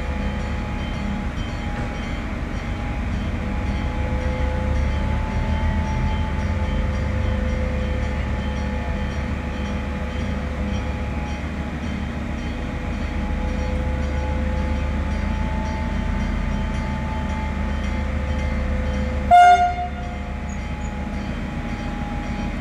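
Diesel railcar idling at a station platform: a steady low rumble with a faint, steady whine above it. About three seconds before the end, one short horn blast sounds.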